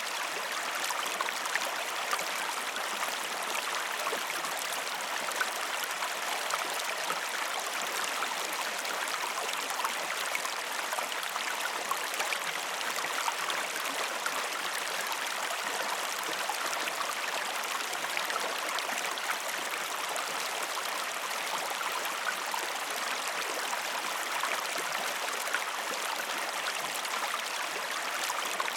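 Waterfall running steadily: an even rush of falling water with many small splashes throughout.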